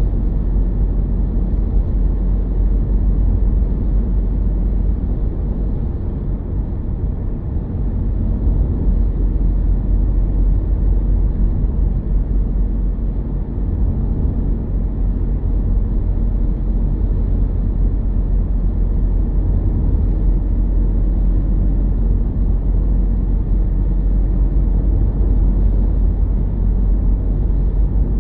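Car driving along a road: a steady low rumble of tyres and engine, easing slightly for a moment twice.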